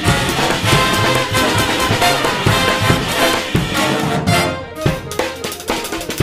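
Brass band playing an up-tempo tune: saxophones, trumpets, trombones and sousaphone over a drum kit. About four seconds in, the full band thins out, leaving sparser hits.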